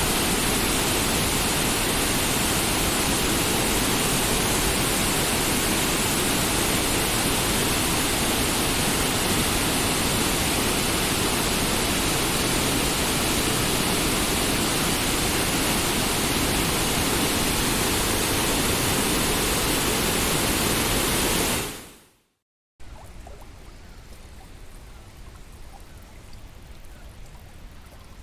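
Steady rush of the fast-flowing Bagmati River, loud and even. It fades out after about 21 seconds, and after a short gap a much quieter rush of running water continues.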